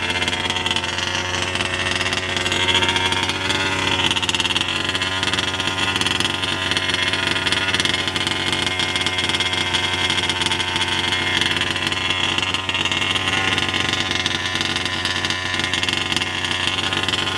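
The two-stroke gas engine of a Losi 5ive-T 1/5-scale RC truck running steadily, holding one speed without revving.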